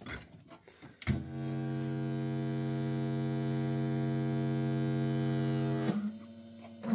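A click as a PCP Supa Streak fruit machine is powered on, then a steady buzzing hum for about five seconds that drops to a single lower tone near the end while the machine boots with its lamps unplugged.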